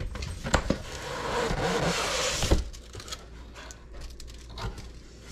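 Cardboard box and packaging being handled and rummaged through: a few clicks and knocks, a stretch of rustling from about a second in, ending in a sharp knock, then quieter handling noises.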